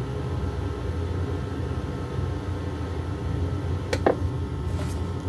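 Steady low hum and hiss of a videotape playing between recordings, with a couple of sharp clicks about four seconds in as the picture breaks up into static.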